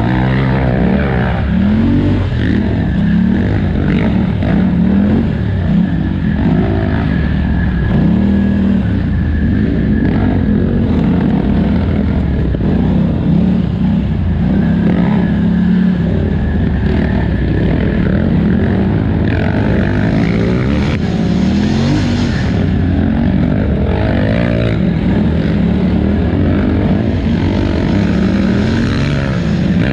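Polaris Scrambler 1000 XP ATV engine revving up and down over and over under race throttle, with wind and rushing noise beneath. A brief louder rush of noise comes about two-thirds of the way through.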